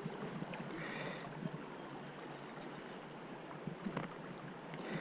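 Steady rush of flowing river water from a shallow channel, with a few small clicks and knocks.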